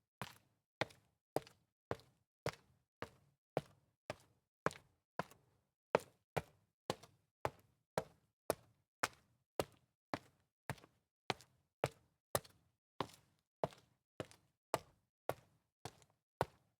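A steady run of sharp, evenly spaced taps, a little under two a second, each dying away quickly with dead silence between.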